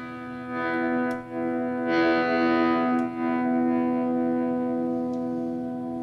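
Steady pitched test signal, a held note with many overtones, heard through a signal-tracing probe on the grid of V3B in a Marshall 4210 preamp. It swells and dips a few times as the controls are turned, which shows signal is reaching that stage.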